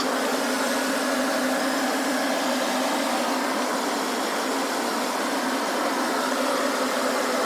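A steady, even whirring noise with no clear rhythm.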